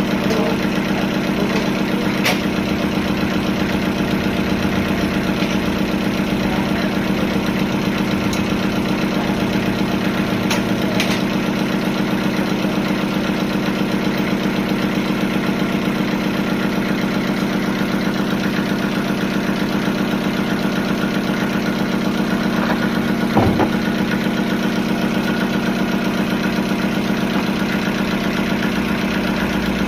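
Sawmill machinery running steadily with an even, idling-like hum, with a few light clicks and one short knock about two-thirds of the way through.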